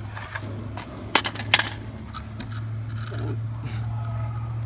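Kick scooter pushed and ridden along asphalt: a steady low rolling hum, with a couple of sharp metallic clinks about a second in.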